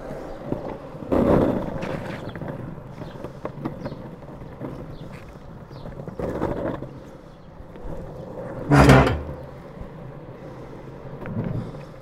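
Longboard wheels rolling steadily on an asphalt path, with three louder swells of rumble as the board rides over bumps and paving; the loudest comes about nine seconds in.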